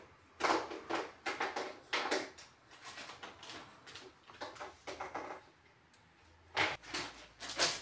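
A dog whining and whimpering in short, irregular bursts.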